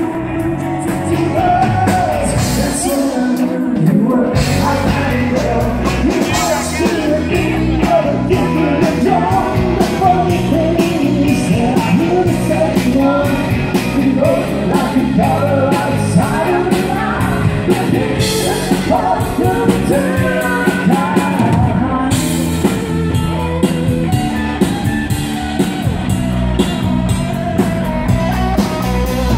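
Live country-rock band: a man singing lead over electric guitar, bass guitar and a drum kit, with a steady beat and cymbals throughout.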